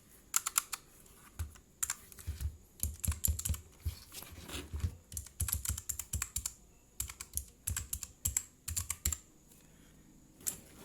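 Blue-switch mechanical keyboard keys clicking in quick runs of presses. These are shift keys, one left bare and one damped with a piece of rubber membrane fitted under the keycap. The clicking stops about nine seconds in, with one more press near the end.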